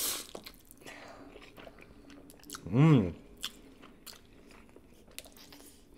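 Spicy fire noodles slurped in at the start, then chewed with wet mouth clicks. About three seconds in there is a short, loud vocal exclamation whose pitch rises and then falls.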